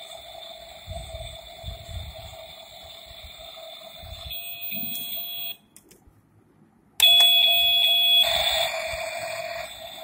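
Toy kitchen's electronic stove playing its cooking sound effect: a steady electronic tone that cuts off about halfway through, then comes back louder a second and a half later, with a hissing, sizzle-like noise for about a second and a half near the end.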